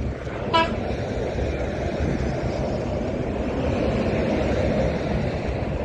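Pickup truck driving along an orchard dirt track, heard from its open bed: a steady rumble of engine, tyres and wind on the microphone. A brief high tone sounds about half a second in.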